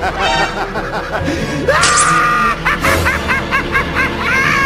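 Background music with high-pitched vocal sound effects: a rising squeal about two seconds in, then a quick run of short high notes.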